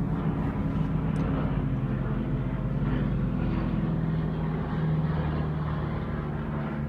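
Several airplanes flying past in formation, their engines making a steady drone that dips slightly in pitch about two-thirds of the way through.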